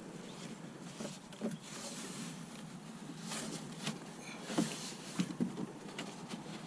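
Hands fitting the plastic parts of a kayak seat bottom into their holes in the hull by feel: a steady rustling and scraping with scattered light knocks and clicks, the most distinct a little after a second in and again around four and a half to five and a half seconds in.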